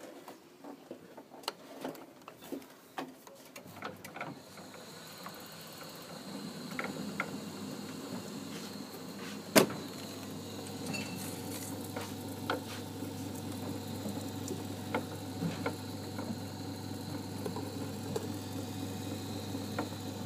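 Vaillant Ecotec boiler's variable-speed circulating pump running with an irregular knocking and rattling, the fault traced to the pump itself. A few clicks come first, then the steady hum of the pump starts about four seconds in, with one loud sharp knock near the middle.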